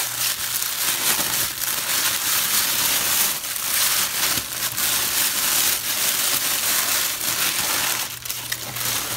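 Tissue paper crinkling and rustling continuously as it is pulled out of a cardboard box and unwrapped from a bath bomb, close to the microphone, easing a little near the end, over a low steady hum.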